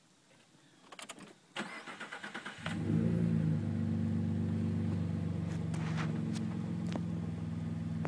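A few clicks, then an engine cranks with a rapid pulsing for about a second, catches, and settles into a steady idle that is the loudest thing here.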